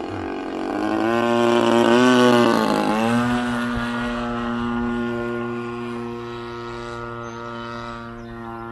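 DLE-35 single-cylinder two-stroke gas engine of an RC model airplane running at speed in flight, its propeller buzzing. It grows loudest about two seconds in, dips slightly in pitch around three seconds, then holds a steady note while slowly fading as the plane flies away.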